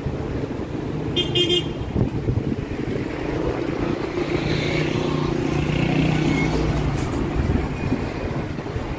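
Street traffic with cars driving past close by, their engines running, and a short car horn toot about a second in.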